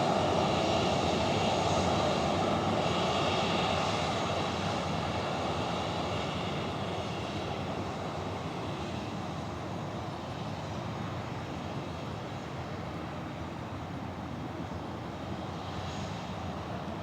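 Boeing 737-800's CFM56 jet engines at takeoff power as the airliner departs. The steady jet noise is loudest at first and slowly fades as it moves away.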